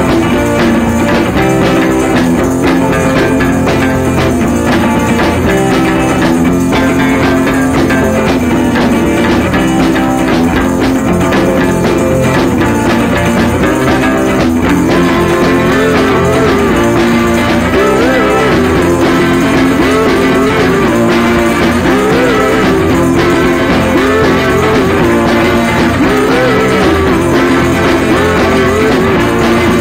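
Loud background rock music with guitar; a wavering melody line comes in about halfway.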